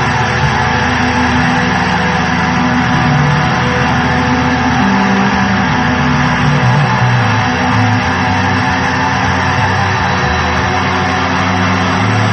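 Background music: loud, distorted electric-guitar rock with a moving bass line.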